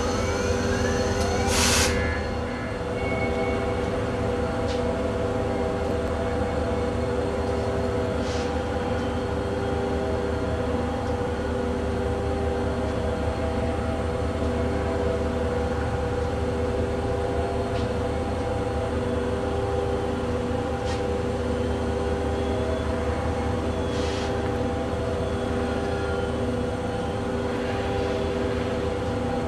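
Reading & Northern freight train: a steady diesel drone and rumble, with a sharp metallic clank or squeal about a second and a half in and a few faint wheel squeals later.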